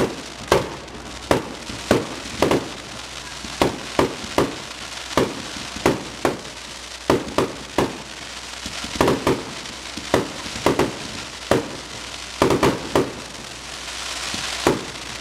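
Aerial fireworks going off in a rapid, irregular series of booms, one or two a second, with a crackling hiss between them.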